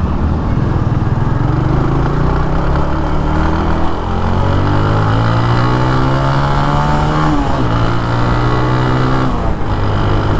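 A 2010 TVS Apache RTR 180's single-cylinder engine on its stock exhaust, with a grunty note under acceleration. About four seconds in, the pitch climbs, steps sharply down at a gear change, climbs again, and falls away near the end.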